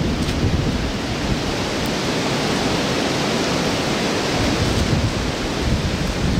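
Strong wind rushing steadily through the woods, with a rumble of wind on the microphone underneath.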